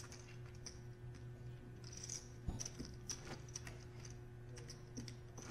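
Quiet room tone: a steady low electrical hum with faint hiss and a few faint scattered clicks, one a little clearer about two and a half seconds in.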